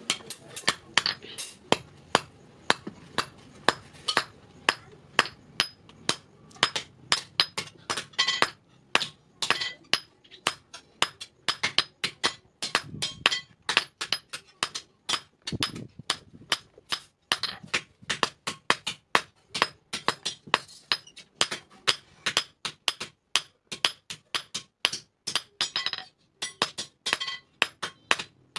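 Hand hammer striking hot iron on a steel anvil block in a steady run of ringing blows, about three a second, as a scissors blade is forged.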